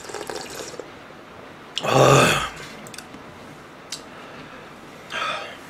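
Soup broth sipped straight from a takeout bowl with faint slurps, then one loud, voiced breath out about two seconds in, and a softer breath near the end.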